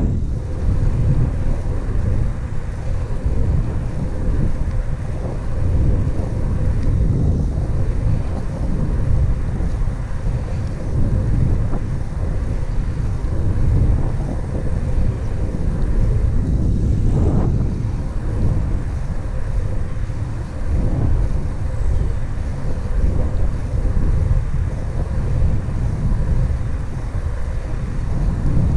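Wind buffeting the microphone of a camera riding on a moving road bicycle: a steady low rumble.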